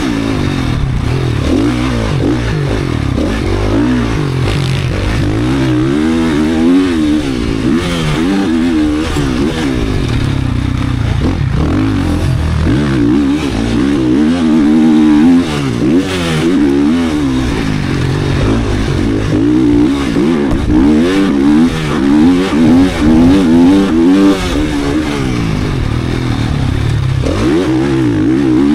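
Four-stroke 450 motocross bike engine, race-built, being ridden hard: its pitch climbs and drops again and again every couple of seconds as the throttle is opened and chopped, with a few brief clattering knocks along the way.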